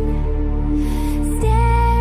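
Background music: a soft, slow melody over steady held chords, the chord changing about a second and a half in.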